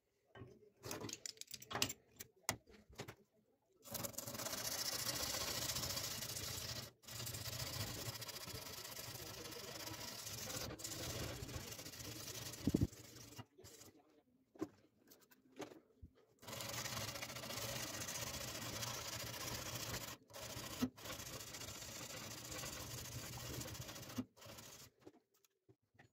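Steel knife blade clamped in a vise being hand-abraded: long runs of steady rasping, scraping strokes of an abrasive over the metal, cut off sharply several times. A few clicks and knocks of handling come in the first few seconds, with a sharp knock just before the middle.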